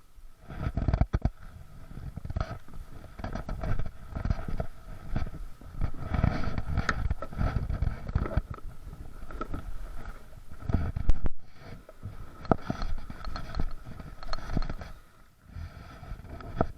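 Kayaks being handled and boarded at the water's edge: irregular hollow knocks and scrapes of the hulls against the shore and each other.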